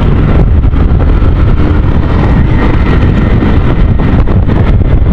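Wind buffeting a helmet microphone on a moving motorcycle, with the Kawasaki Rouser NS160's single-cylinder engine running underneath.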